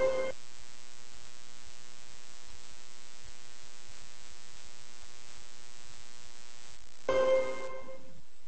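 Orchestral music cuts off at the start, leaving a steady electrical hum with a buzzy edge and faint hiss. About seven seconds in, a half-second snatch of music plays, then only hiss remains.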